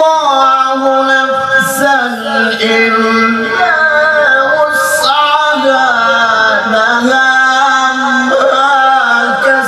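A man reciting the Quran in the melodic tilawah style into a microphone, holding long ornamented notes that waver and glide in pitch, with brief breaks for breath.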